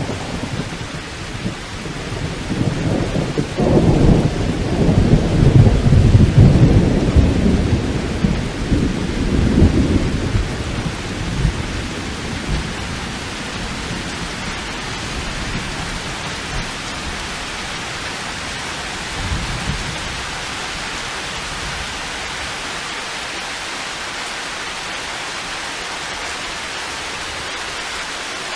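Steady heavy rain with a long roll of thunder that builds a few seconds in, peaks around six seconds and rumbles away by about eleven seconds, leaving the rain hiss alone; a faint short rumble follows near the twentieth second.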